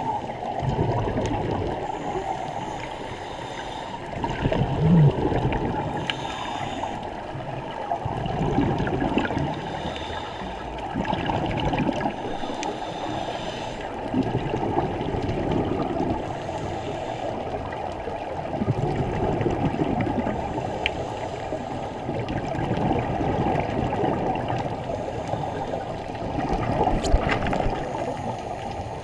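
Scuba regulator breathing underwater: muffled bubbling and gurgling with a hissing surge every two to three seconds as the diver breathes and exhaust bubbles stream out.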